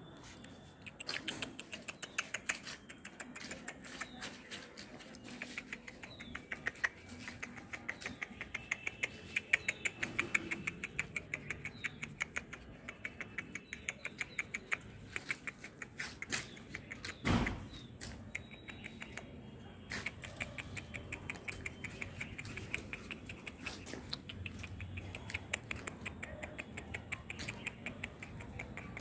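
Saint Bernard puppies scrambling on concrete: a fast, constant patter of claw clicks, with faint high squeaks, and one sharp knock about seventeen seconds in.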